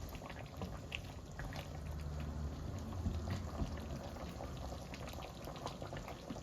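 Thai green curry simmering in the pan, bubbling with many small pops.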